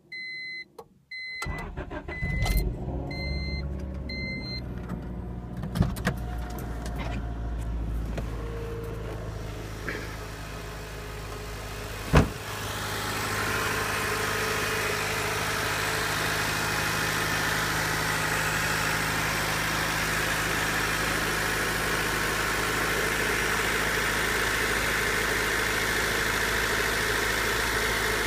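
Dashboard warning chime beeping, then the starter cranks briefly and a 1992 Honda Civic LX's 1.5-litre four-cylinder catches on a complete cold start and settles into a steady fast idle of about 1500 rpm. One sharp thump about 12 seconds in, after which the idle is heard louder and fuller, as from the open engine bay.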